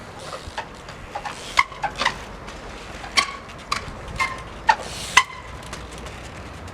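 Trials bike hopping: a run of about seven sharp knocks, roughly one every half second to second, several with a short metallic ring as the bike lands, over a steady hiss.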